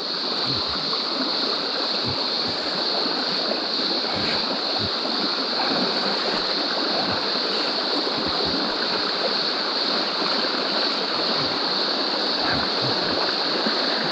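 Shallow rocky stream running over stones: a steady, even rush of water, with a steady high-pitched drone above it.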